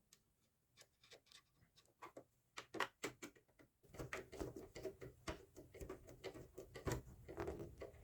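A screwdriver driving a small screw into a Janome sewing machine's plastic housing: faint, irregular clicks and scrapes of metal on plastic, growing busier about halfway through.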